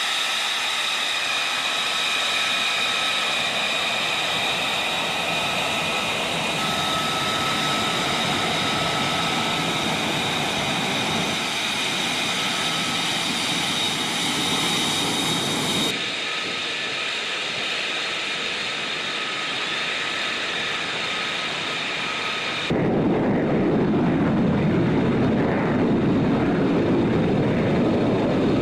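F-35 Lightning II's F135 turbofan engine running at ground idle and taxi power, a steady high whine over a rushing noise. The sound changes abruptly twice. About six seconds before the end it becomes louder and deeper, with a swooshing sweep in pitch as a jet moves past.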